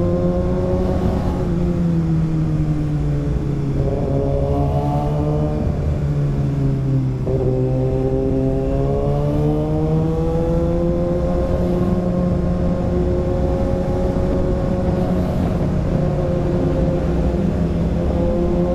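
Kawasaki ZX-6R 636's inline-four engine running under way, its pitch sagging and climbing again with the throttle, with a quick drop and rise about seven seconds in, over steady wind noise.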